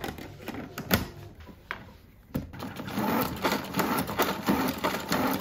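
Plastic salad spinner full of lettuce: a few knocks as the lid is fitted onto the bowl, then from about two and a half seconds in the basket spins with a dense, steady rattling whir.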